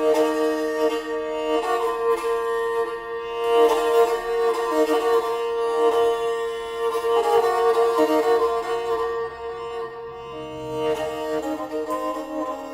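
Instrumental background music: a fiddle-like bowed-string melody over a steady held drone note.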